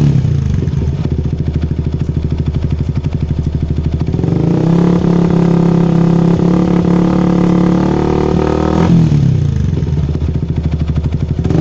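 Yamaha R15's single-cylinder engine running through a Lone Rider aftermarket exhaust. It idles with a pulsing beat, is held at higher revs for about four seconds, then drops back to idle.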